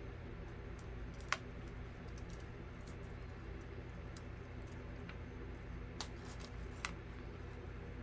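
A few light clicks and taps, the sharpest about a second in, from a string of small plastic bee-shaped LED fairy lights being handled and set against a jute-rope beehive, over a steady low hum.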